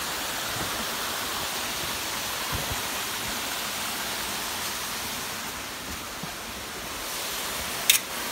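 Steady hiss of rushing water from a forest waterfall, with a sharp click near the end.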